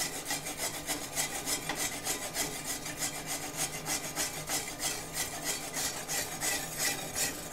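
A flat steel bar scraped hard across a steel plate in quick repeated strokes, several a second, metal grating on metal as it knocks loose flux-core weld spatter.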